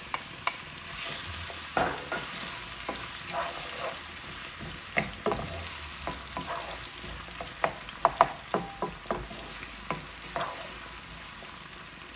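Chopped onion sizzling in hot sunflower oil with cumin seeds in a frying pan, stirred with a wooden spatula. The spatula makes repeated sharp knocks and scrapes against the pan, coming thicker about two-thirds of the way through.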